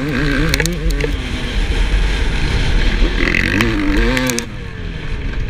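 2007 Yamaha YZ250 two-stroke dirt bike engine revving up and down as the throttle is worked on a motocross track, its pitch rising and falling again and again, with a brief let-off about four and a half seconds in.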